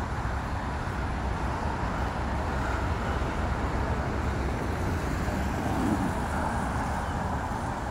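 Steady road traffic noise, with a low rumble of breeze on the microphone.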